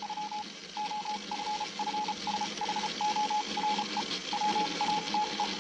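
Morse code beeps over a radio: a single mid-pitched tone keyed on and off in irregular short and long pulses, over steady radio hiss and a faint low hum.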